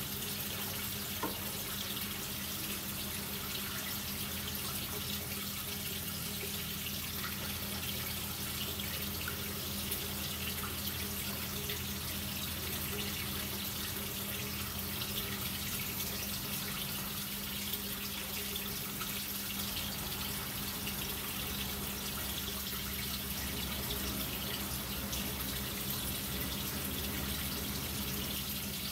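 Water running steadily, with a low, even hum beneath it.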